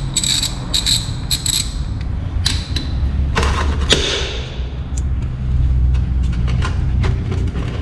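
Ratchet wrench clicking in short runs as it loosens the oil drain bolt of a motorcycle engine, followed by scattered knocks and scrapes of metal.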